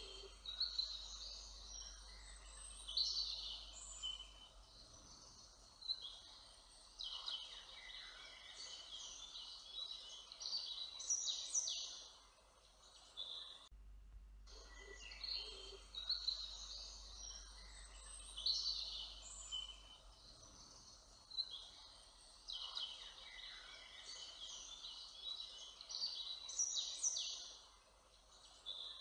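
Songbirds singing: many short, overlapping phrases and trills, with a faint low hum beneath. The same stretch of birdsong starts over about 14 seconds in.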